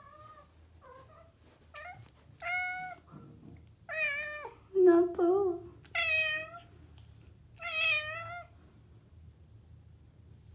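A domestic cat meowing over and over: a few faint short mews at first, then about six louder drawn-out meows, each about half a second long.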